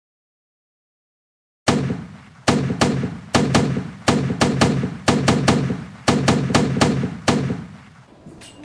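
Gunshot sound effects: after a second and a half of dead silence, some twenty shots in quick, irregular succession, each a sharp crack with a deep boom and short decay, stopping about a second before the end.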